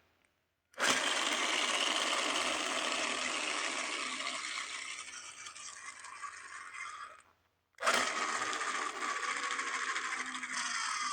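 A battery toy's small electric motor whirring in two long runs, with a slowly falling pitch and a half-second break about seven seconds in.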